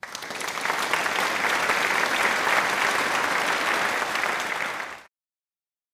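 Crowd applauding, a dense clapping that starts abruptly and cuts off suddenly after about five seconds.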